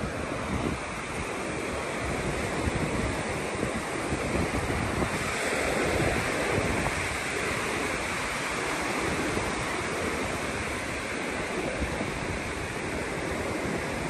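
Ocean surf washing onto the beach, with wind buffeting the microphone. The surf grows a little louder for a few seconds around the middle.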